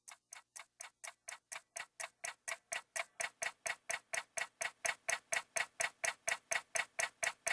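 Clock ticking, about four ticks a second and growing steadily louder: the ticking-clock intro of a pop song, just before the vocal comes in.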